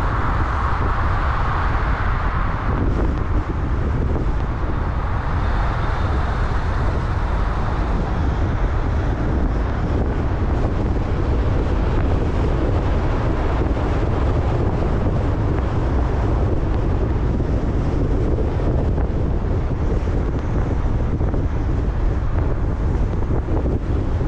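A car driving through city streets: a steady rumble of road and traffic noise, with wind rumbling on the microphone.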